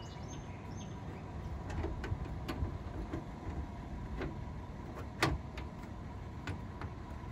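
Pop-up camper door latch being worked with a key: light metal clicks and rattles of the key and latch, with one sharper click about five seconds in as the latch pin lines up.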